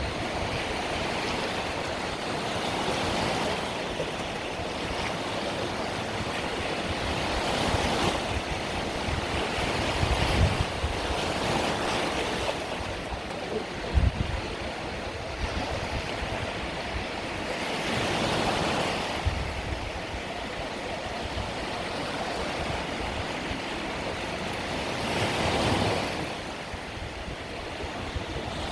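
Mediterranean sea surf: small waves breaking and washing onto the shore, the hiss swelling and ebbing every several seconds.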